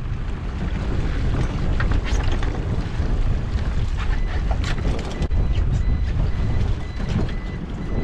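Heavy wind buffeting the microphone over sea water, with scattered knocks and clatters as a netted lobster pot is hauled by hand over the side of a small boat.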